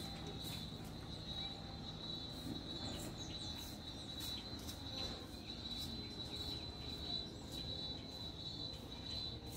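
Insects trilling steadily on one high pitch, over a low background rumble.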